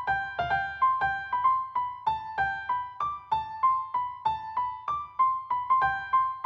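Background music: a light, plinking keyboard melody of quick, evenly paced notes.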